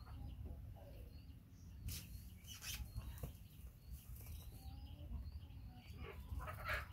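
Faint outdoor ambience: distant birds chirping now and then over a steady low rumble, with a few short scratchy rustles, the loudest near the end.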